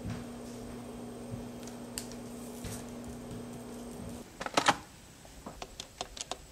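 Steady low hum, cut off after about four seconds by a loud clatter as a corded landline phone handset is handled, then a quick run of sharp clicks from its keypad buttons being pressed to dial a number.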